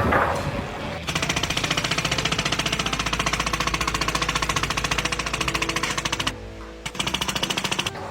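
A rapid mechanical hammering, about a dozen even strokes a second. It breaks off briefly about six seconds in and starts again for about a second.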